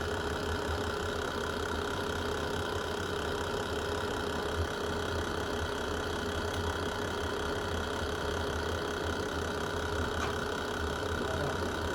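Wood fire burning in a fireplace with a steady low rumble and a faint pop about four and a half seconds in and again near ten seconds.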